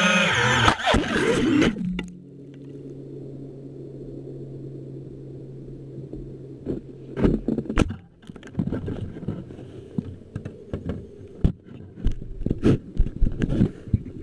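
Music or singing stops about two seconds in. A low steady hum is left, and from about halfway through it is broken by irregular clicks, knocks and scraping rattles.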